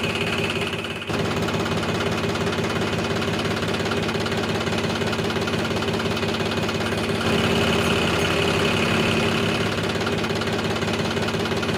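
Tractor engine idling steadily. It dips briefly about a second in, then from about seven seconds it runs a little louder and deeper.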